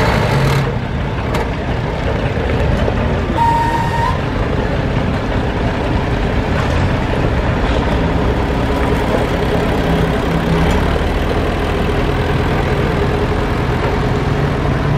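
International Harvester farm tractor's engine running steadily at low speed as the tractor is driven and turned. A brief high tone sounds about three and a half seconds in.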